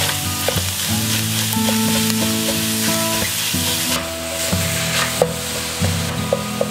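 Ground pork sizzling as it fries in a stainless steel pan, stirred and broken up with a wooden spoon; the sizzle thins out about four seconds in, and a few sharp knocks come near the end. Background music plays underneath.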